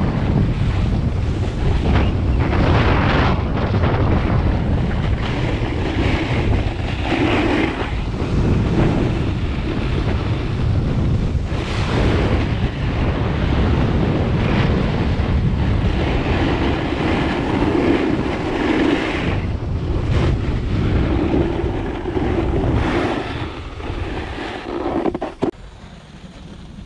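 Wind rushing over a helmet-mounted GoPro Hero 7 Black's microphone at about 15 mph on a ski run, with the scrape of edges on packed snow swelling every few seconds at each turn. About 25 seconds in, the noise drops away sharply as the rider stops.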